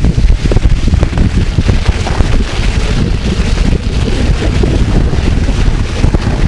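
Loud wind buffeting on the microphone of a camera riding on a moving bike, a dense uneven low rumble with no clear engine note.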